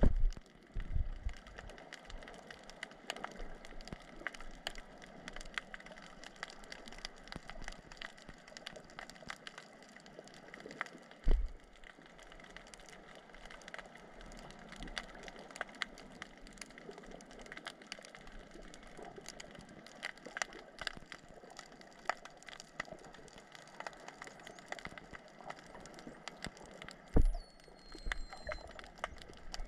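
Underwater ambience picked up by a camera in the sea: a steady crackle of many small clicks, broken by a few low thumps, at the start, about eleven seconds in and near the end.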